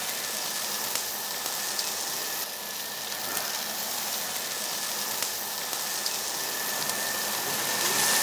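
Slices of pork jowl sizzling steadily on a hot grill, with scattered small pops and crackles.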